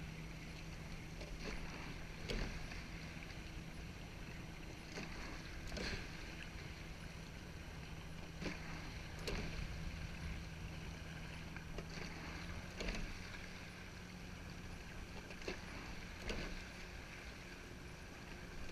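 Eight-oared rowing shell under way at a steady, low stroke rate: the oars clunk in their oarlocks twice per stroke, at the catch and at the release, the pairs coming about every three and a half seconds over the wash of water along the hull.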